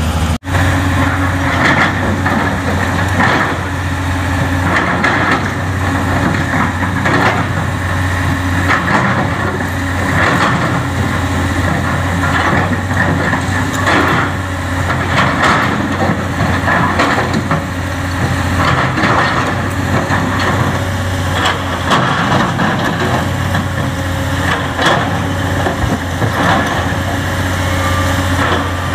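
Excavator diesel engine running steadily under load, with repeated knocks and clatter of rock and sand against the machine.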